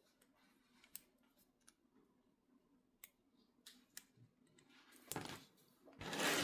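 Scattered small metallic clicks of a bobby pin working at Peerless 700C handcuffs, then a louder scraping rustle of the cuffs and hands being moved, starting about five seconds in.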